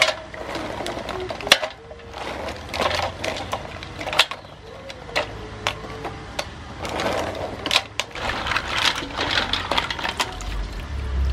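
Mussel shells clicking and clacking as they are dropped one by one into an aluminium basin of water, with small splashes. Near the end, handfuls of mussels are lifted and let fall back into the water with a louder splash and sloshing.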